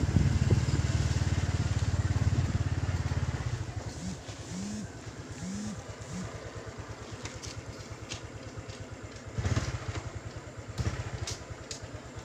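Honda Dash 110 motorcycle's single-cylinder four-stroke engine running under throttle, then dropping to a quieter, steady running after about three and a half seconds as the bike slows. It gives a short louder burst of throttle about three-quarters of the way in, and a few sharp clicks come near the end as the bike stops.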